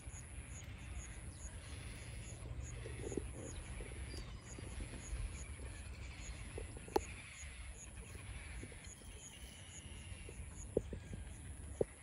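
Wetland bird-colony ambience: faint distant bird calls over a low wind rumble, with a faint high ticking repeating a few times a second and a few short sharp calls or clicks, the loudest about halfway through and near the end.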